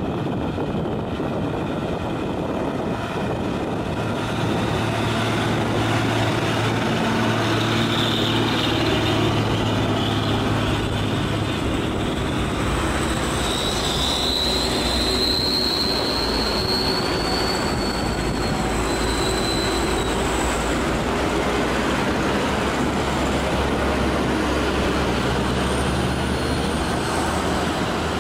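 Heavy diesel trucks and other traffic grinding uphill past the roadside, engines working on the steep climb, with a steady wash of engine and tyre noise. Around the middle a high whine rises slowly over several seconds and then fades.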